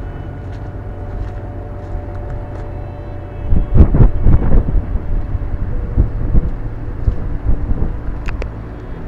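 Strong wind buffeting an action camera's microphone, with heavy gusts from about three and a half seconds in, over a steady low rumble with faint steady tones.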